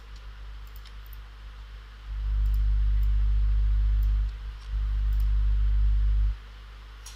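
Faint computer mouse clicks over a low hum, which swells much louder twice for about two seconds each and then drops back.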